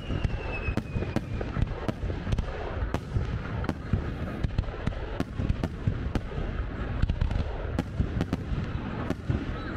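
Aerial fireworks display going off in quick succession: many sharp cracks, several each second, over a continuous low rumble of booms.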